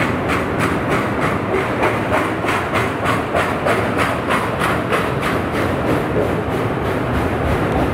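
Railway cars rolling past, their wheels clicking over rail joints at an even beat of about three a second, over a steady low rumble.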